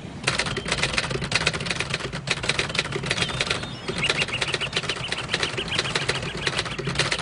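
A flock of birds flapping their wings in a dense, rapid clatter. Short chirping calls repeat over it from about four seconds in. The sound starts suddenly just after the beginning.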